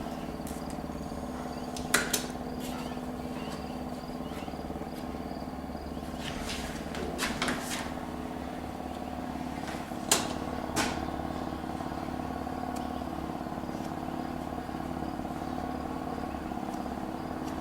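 A steady motor-like hum, with a few short sharp clicks and handling noises about two, seven and ten seconds in, as latex caulk is run along the edges of a window sill.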